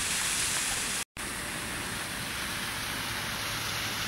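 Steady hiss of water spilling down an artificial rock waterfall, dropping out for an instant about a second in.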